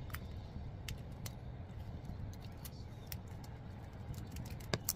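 Light, scattered clicks and taps from a black plastic part being handled and turned over, with a sharper click near the end, over a steady low background rumble.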